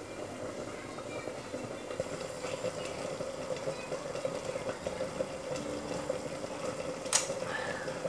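Lidded pot on the stove simmering, a steady bubbling hiss, with a single sharp click about seven seconds in.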